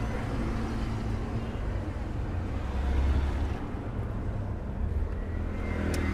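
Steady low rumble of vehicle noise, with a single sharp click near the end.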